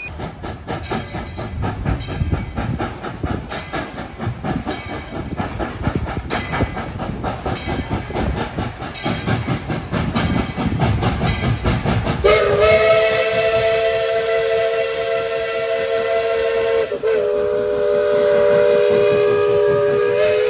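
Tweetsie Railroad's narrow-gauge steam locomotive No. 12 working toward the listener, its exhaust chuffing in a quick, even beat. About twelve seconds in, its multi-tone chime whistle starts a long blast, louder than the chuffing, with a brief break near the end.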